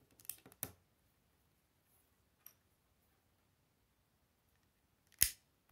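Plastic Lego bricks clicking as they are pressed onto a Lego plate: two clicks near the start, a faint one a couple of seconds in, and a louder single click about five seconds in.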